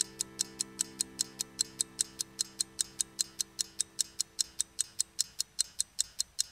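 Quiz countdown-timer sound effect: a clock ticking rapidly and evenly, about five ticks a second. Under it a low held music chord fades out about five seconds in.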